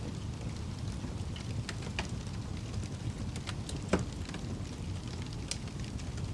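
Wood fire crackling: irregular sharp pops and snaps over a steady low rumble of burning, with one louder pop about four seconds in.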